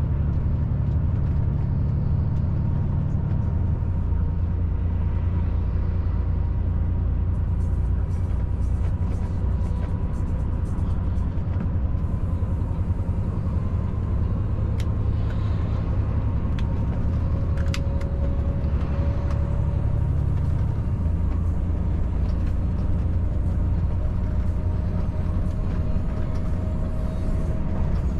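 Volvo FH540 truck's 13-litre six-cylinder diesel and road noise while cruising on the highway: a steady low drone that changes character twice, a few seconds in and about two-thirds of the way through, with a few sharp clicks in the middle.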